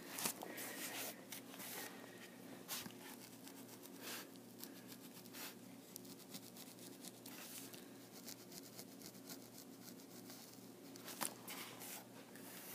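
Pencil point dotting an outline onto foam board along the edge of paper plans: faint, irregular light taps and scratches, over a faint steady hum.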